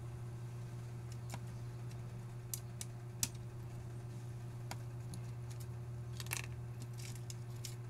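Scattered small, sharp clicks and taps of a screwdriver and fingers on a laptop's motherboard, its screws and its ribbon-cable and antenna connectors as they are undone, the loudest about three seconds in and a quick cluster near six seconds. A steady low electrical hum runs underneath.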